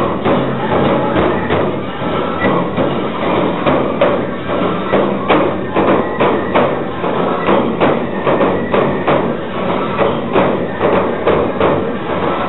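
Nebuta festival drums: the float's large taiko beating a steady rhythm over the busy sound of the parade and crowd.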